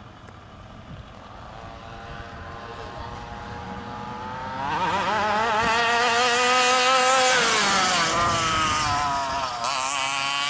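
Small 27cc two-stroke gas engine of a radio-controlled monster truck revving as the truck drives about. The engine note builds over several seconds, is loudest and warbling in pitch in the middle, then drops in pitch and dips briefly near the end before picking up again.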